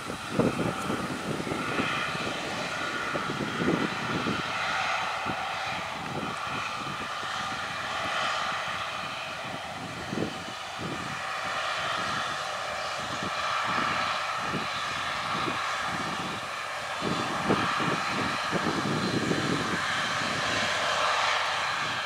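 Diesel engine of a John Deere eight-tyred articulated four-wheel-drive tractor running steadily under load, pulling an air seeder through the paddock, with an uneven low rumble underneath.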